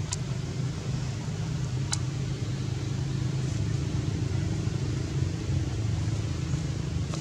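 Steady low engine hum of a running motor vehicle, with two sharp clicks near the start.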